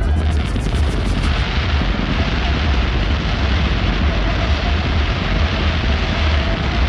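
A dense fireworks barrage: many explosions merging into a continuous booming rumble with heavy low end, with a rapid crackle in the first second or so.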